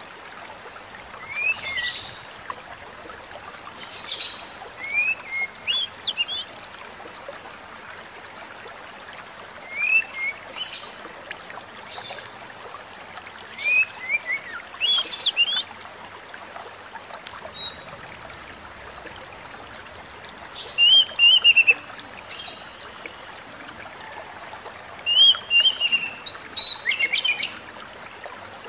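Oriental magpie-robin singing in short, sharp whistled phrases every few seconds, the phrases coming faster and louder near the end, over a steady background hiss.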